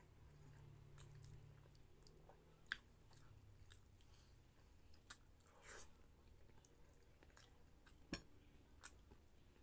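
Faint close-up eating sounds of a man chewing a mouthful of pork menudo and rice, with scattered wet mouth clicks and smacks, two sharper ones about a third of the way in and near the end.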